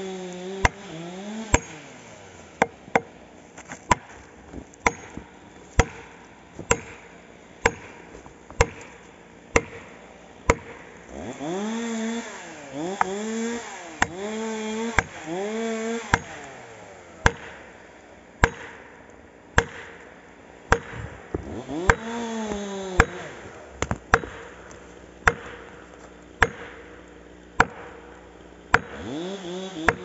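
Steady axe blows, about one a second, against the base of a standing pine trunk. A chainsaw engine revs up and down in the background a few times, mostly in the middle and second half.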